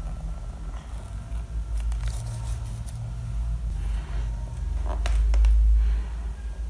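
Ballpoint pen scratching lines on paper and a plastic ruler being shifted on the sheet, with a few short scratchy clicks. Under it a low handling rumble from the hand and arm on the drawing board swells about five seconds in, then drops.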